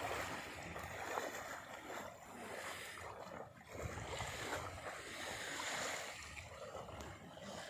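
Small sea waves washing onto a sandy shore, the wash swelling and easing a couple of times.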